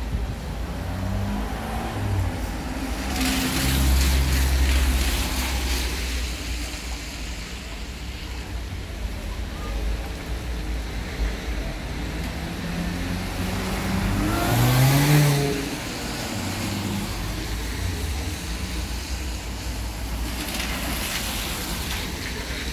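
Cars driving past on a rain-soaked road, their tyres hissing on the wet surface. The hiss swells and fades in three waves, the loudest about two-thirds of the way through, where an engine's pitch rises as it pulls away.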